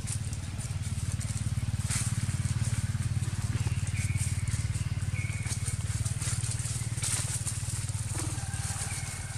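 An engine running steadily in the background as a low droning hum, with a few short high chirps about four, five and nine seconds in and light crackles over it.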